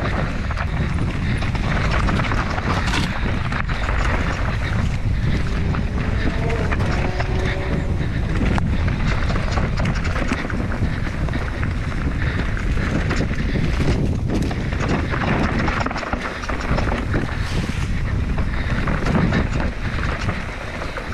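Wind rushing over the camera microphone on a fast mountain-bike descent, with the enduro bike knocking and rattling over rough trail.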